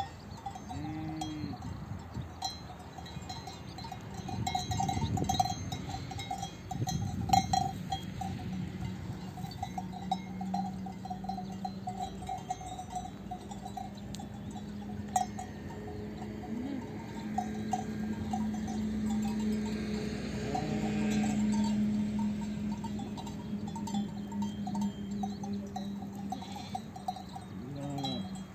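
Livestock bells clanking irregularly on a grazing flock, with a short bleat near the start and another near the end. A steady low drone runs through the middle stretch.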